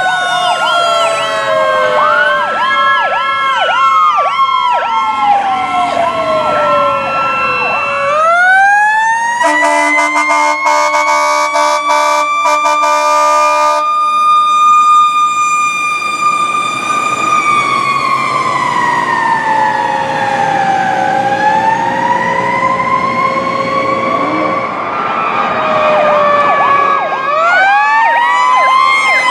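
Fire truck sirens and air horn: the siren alternates between a fast yelp and slow rising and falling wails, with air horn blasts in the middle and a long wail sinking and climbing again later.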